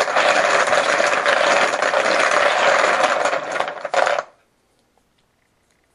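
Plastic poker chips being shaken and clattering together for about four seconds as they are mixed for a random draw, then stopping abruptly.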